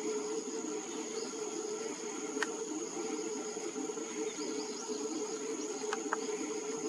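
Steady high insect trilling over a constant low hum, with a few faint short chirps and a couple of small clicks.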